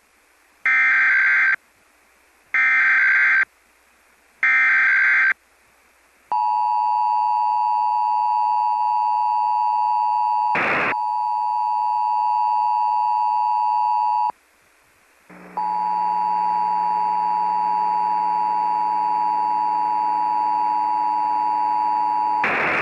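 Emergency Alert System Required Monthly Test: three short bursts of SAME header data tones, about two seconds apart, followed by the two-tone EAS attention signal held steady for about eight seconds, with a click near the middle. After a brief break the attention signal starts again, now with a low hum and hiss under it.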